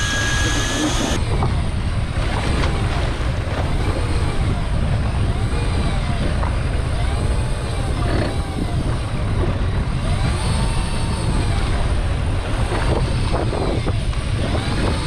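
Steady wind rumble on the microphone on a small open boat at sea, with the chop of the water around it. Faint whines rise and fall every second or two.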